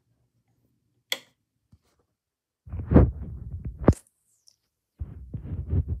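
A wall switch clicks once about a second in. Then come bouts of low rumbling and thumping, heaviest just before the four-second mark, cutting out for a second and returning near the end.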